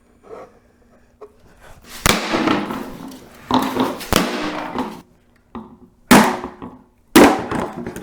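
Plastic speaker casing being pried apart at its edges: about five loud, sharp cracks, the first about two seconds in, each trailing off in a short scraping rasp.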